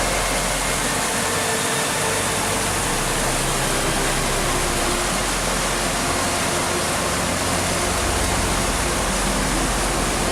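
Steady rushing of a fast mountain torrent.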